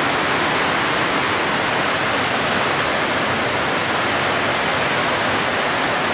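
Heavy rain falling on a corrugated sheet-metal roof and walls, a loud, steady rush of noise with no break.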